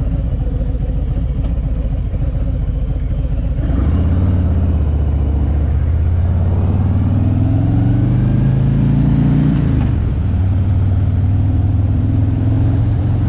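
Motorcycle engine running under way, recorded through a GoPro mic with wind noise on it. About four seconds in the engine pulls harder and its pitch climbs steadily for about six seconds, then drops as a gear is shifted up, and it runs on steady.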